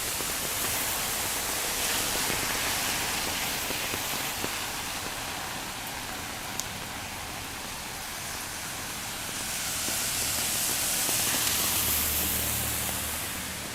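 Steady rain hissing. About ten seconds in, a louder wash with a low rumble swells and then fades.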